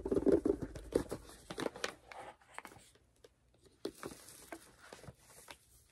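A small CD album package being opened by hand: paper and plastic crinkling and rustling with scattered small clicks and taps, busiest in the first second.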